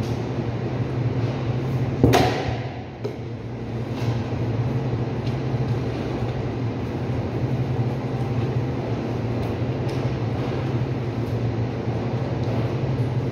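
Steady low hum of cutting-room refrigeration machinery. About two seconds in comes one loud clank that rings out briefly, and a few faint clicks follow while the meat is being cut.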